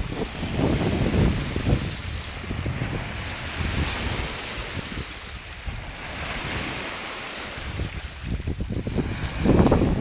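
Waves on Lake Baikal washing in with a surging hiss, while wind buffets the microphone in uneven low rumbling gusts that grow louder near the end.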